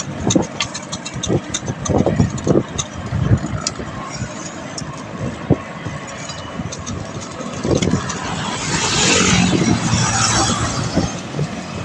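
Wind buffeting the microphone of a camera on a moving bicycle, with uneven thumps and rumble and scattered clicks. About eight seconds in, a motor vehicle passes: a louder hiss with a low engine tone that swells and fades over about two seconds.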